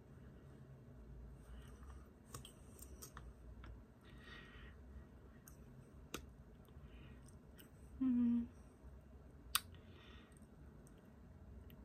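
Quiet, scattered small clicks and lip smacks as lip gloss is put on with its wand applicator. A brief hummed "mm" comes about eight seconds in.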